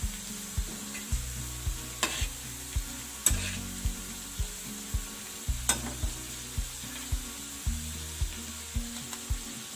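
Vegetables sizzling in hot oil in a kadai, with a steel spatula scraping and knocking the pan a few times, over background music with a steady beat of about two pulses a second.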